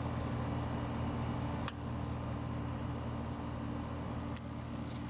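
LG ThinQ 8000 BTU window air conditioner running steadily: a low, even hum with fan air noise, its fan motor turning on newly replaced bearings. A single sharp click comes just under two seconds in.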